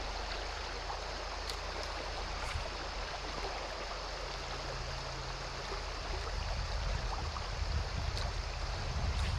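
Shallow creek riffle running over rocks: a steady rush of water, with a low rumble growing louder about two-thirds of the way in.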